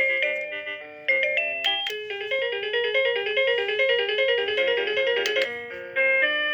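AVANTEK wireless doorbell receiver playing one of its electronic chime melodies. The tune breaks off briefly about a second in, then runs into a quick string of notes. A different tune begins near the end.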